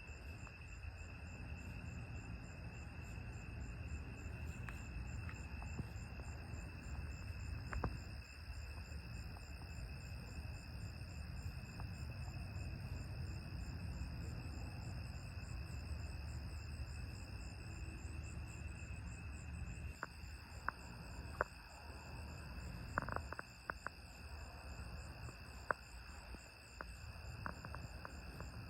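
Night chorus of crickets and other insects: steady high trilling, with a faster pulsing trill above it. A low rumble lies underneath, and a few sharp clicks come in the last third.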